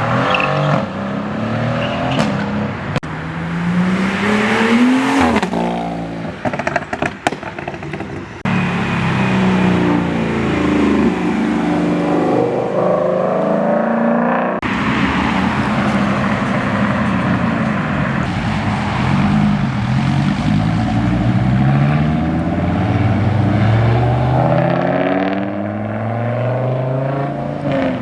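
Cars accelerating hard away from a car meet, one after another. Each engine's pitch climbs, drops at a gear change, then climbs again, and the passes are cut together.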